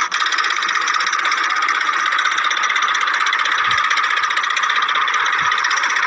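Small electric motor and plastic gearbox of a toy tractor whirring steadily as it drives, a high-pitched, evenly fluttering whine.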